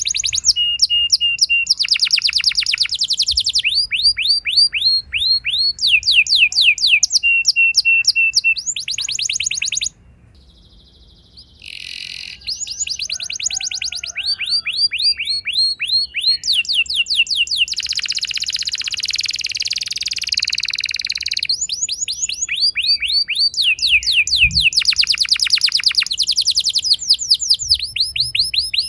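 Domestic canary singing long, fast trills (rolls) of rapidly repeated notes, mixed with short held notes. The song breaks off about ten seconds in and starts again some two seconds later.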